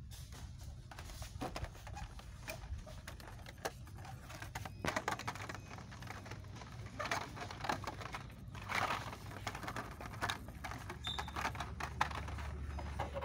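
Hot Wheels blister cards clacking and rustling as they are flipped through on a metal peg hook, in irregular clicks and scrapes, over a low steady hum.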